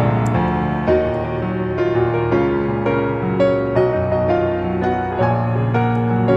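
Background music: piano playing a soft melody over sustained chords.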